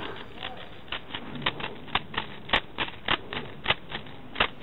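Airsoft guns firing: a run of sharp, irregular clicks and snaps, about three or four a second.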